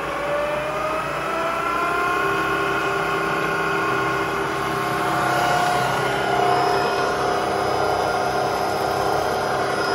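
Freshly rebuilt ZF 85A marine transmission spinning on a test dyno, a steady mechanical whine that rises in pitch over the first couple of seconds as it is run up to 1800 rpm, then holds level at speed.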